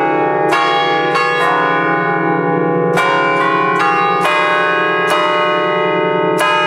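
Five bronze church bells in D-flat, cast by Fratelli Ottolina in 1932, played as a tune from a wooden baton keyboard. The strikes come every few tenths of a second, and each bell rings on under the next. Heard loud and close, from the belfry.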